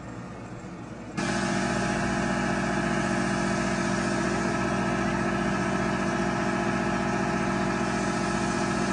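A steady, even-pitched engine-like drone that starts suddenly about a second in and holds unchanged until it cuts off near the end.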